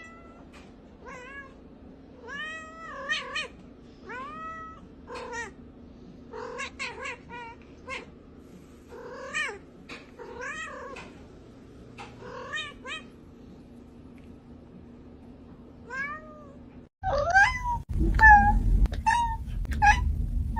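Domestic cat giving a long run of short, arching meows, often two to four in quick succession. After a cut, a second cat meows more loudly over a low rumbling noise.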